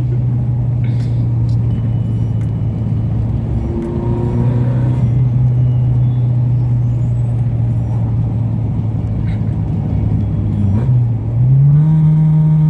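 Car engine and exhaust droning steadily while driving. Near the end the pitch briefly dips, then climbs and settles at a higher steady drone, as the engine picks up revs.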